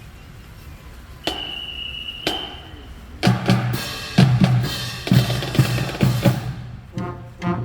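Marching band drumline: a long high whistle blast, then bass drums and snare drums strike a loud, steady cadence. Brass instruments come in near the end.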